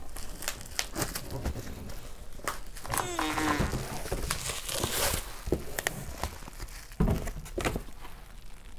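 Bubble wrap crinkling and crackling as a wrapped computer is lifted out of a cardboard box, with cardboard packing rubbing and knocking. A brief pitched sound comes about three seconds in, and a sharper knock about seven seconds in.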